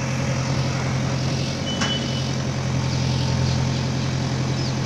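JCB excavator's diesel engine running steadily with a low drone, with one brief click about two seconds in.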